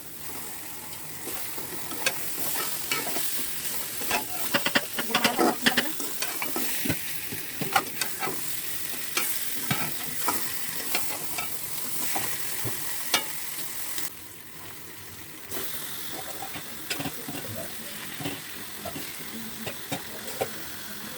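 Food sizzling in hot oil in a pan while a spatula stirs and scrapes against the pan, making many sharp clicks over a steady hiss. The sizzle drops briefly about two-thirds of the way through, then resumes.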